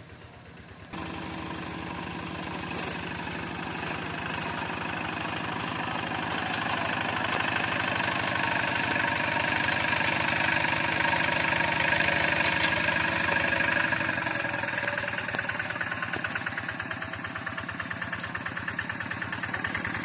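Hand tractor's single-cylinder diesel engine running while ploughing. It comes in abruptly about a second in, grows louder toward the middle and eases a little near the end.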